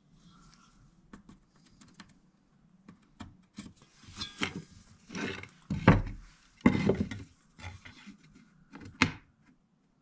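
Wooden parts and tools handled on a wooden workbench: light clicks and rubbing, then a few heavier wooden clunks a little past the middle as a board is picked up and set back down, and one last knock near the end.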